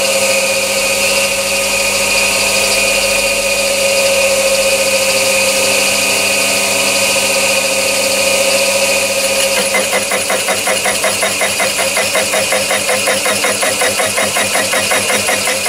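Chinese mini lathe running in low gear at about 300 RPM, spinning a 3-inch HSS slitting saw, with a steady motor and gear whine. About two-thirds of the way through, the saw starts cutting into the workpiece as the cross slide is fed in, and a fast regular pulsing, about five a second, sets in. The operator calls the cut one that is cutting really well.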